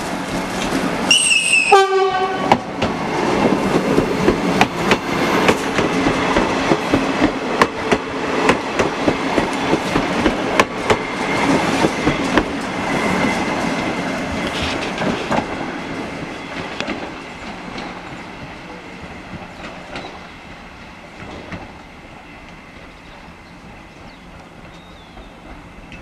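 Renfe Cercanías class 446 electric multiple unit sounds its horn about a second in, a higher tone then a lower one, then runs past with its wheels clattering over the rail joints. The rumble and clatter fade as the train draws away.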